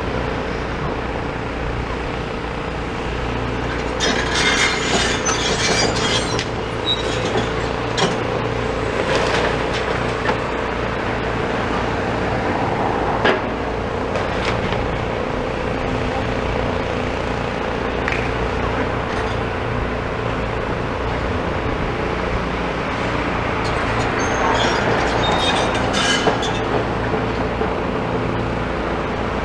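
Demolition excavators running at a distance, their engines giving a steady drone. Bursts of scraping and clanking of rubble come about four seconds in and again near the end, with a single knock midway, as the site is levelled and cleared.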